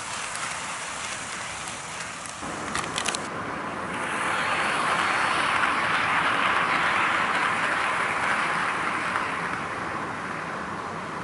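HO-scale model train running on sectional track, the rolling rumble of its wheels and motor swelling as the KiHa 58 series railcars pass close by, loudest about six seconds in, then fading as they draw away. A few sharp clicks come about three seconds in.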